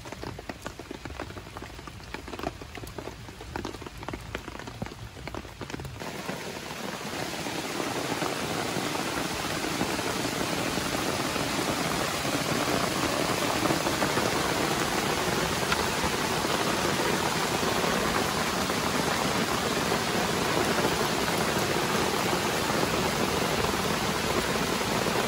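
Rain falling, with scattered crackling drops for the first few seconds, then building into a steady, heavier downpour about seven seconds in.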